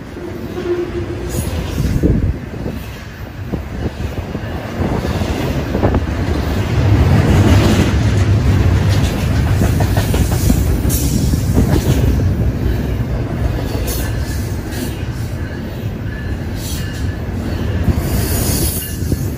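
Double-stack container freight train rolling past close by: a steady low rumble of steel wheels on rail, with clicking over the rail joints and brief high wheel squeals now and then.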